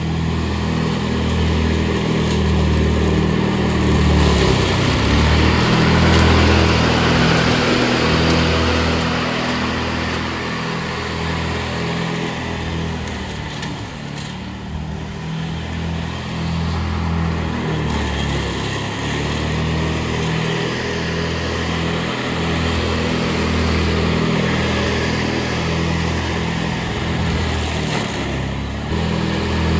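Ride-on lawn mower engine running steadily under mowing load, with the cutting noise spread over it. It eases off a little around the middle and picks back up.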